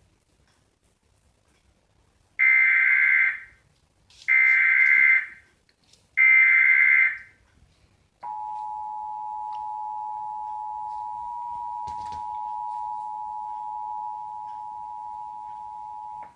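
Emergency Alert System signal opening a Required Monthly Test: three loud bursts of SAME digital header data, each about a second long and about two seconds apart, then the two-tone attention signal (853 and 960 Hz). The attention signal starts about eight seconds in, holds steady for about eight seconds and is quieter than the bursts.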